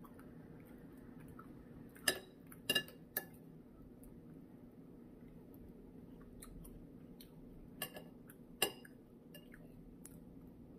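Spoon clinking against a soup bowl while eating, a few sharp clinks in two clusters over a low steady background hum.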